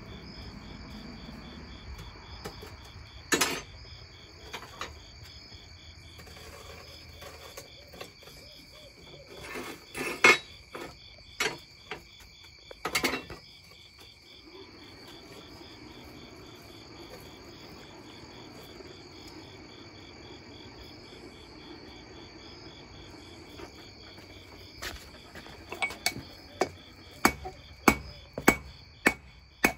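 Hammer blows on hot steel at the anvil while forging a knife blade: a few separate strikes in the first half, then a steady run of about two blows a second near the end. Crickets chirp steadily throughout.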